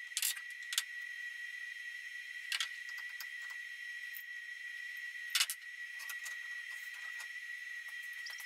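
Sharp metallic clicks and clinks of hand tools on a CNC router's spindle collet nut as the milling bit is changed, a few loud ones among many small ticks. A steady high-pitched whine runs underneath.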